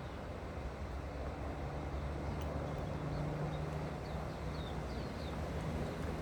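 Steady low mechanical drone, like a distant engine, with a few faint, short high chirps a few seconds in.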